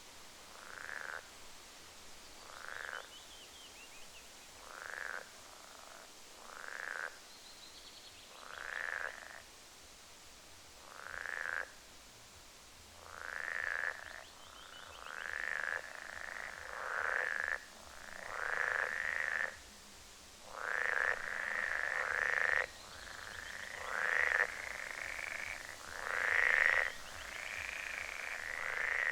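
Frogs croaking: short calls roughly every two seconds at first, then coming faster, overlapping and growing louder towards the end.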